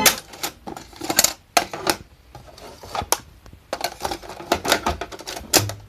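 Irregular sharp clicks and clattering knocks, more than a dozen spread unevenly, as of hands working the 8-track cartridge deck between tapes.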